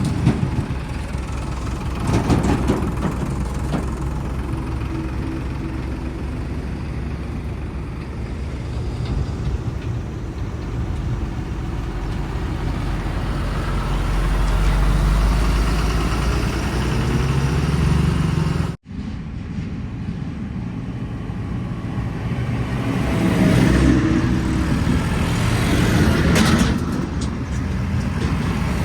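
Heavy vehicle's diesel engine running steadily, louder for a few seconds past the middle, with the sound cutting out for an instant about two-thirds of the way through.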